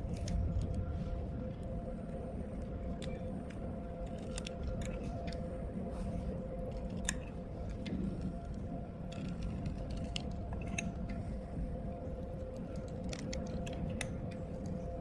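Short, irregular scratches and clicks of hand tools working glue off the surface of a phone screen, over a steady electrical hum.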